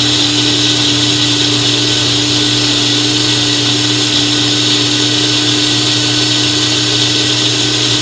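Mainstays personal blender's motor running steadily at full speed, blending a smoothie: a loud, even whine that holds one pitch throughout.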